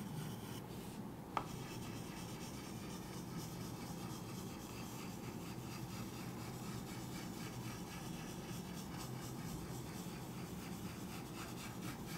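Chalk rubbed on a chalkboard to shade in a small shape: faint and steady, with one sharp tick about a second and a half in.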